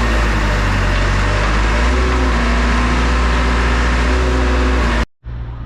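JCB backhoe loader's diesel engine running steadily, with a heavy low rumble and held tones that shift in pitch now and then. It cuts off abruptly about five seconds in.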